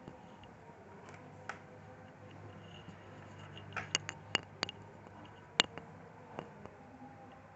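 Scattered sharp clicks and taps of small screws, a screwdriver and plastic laptop casing being handled during reassembly, with a quick cluster of clicks about four seconds in and a single louder click shortly after. A faint steady hum lies underneath.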